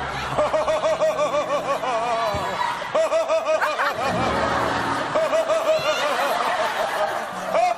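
A person laughing hard in a long, loud run of high-pitched, rapidly repeated laughs, with short breaks about two and a half and four seconds in.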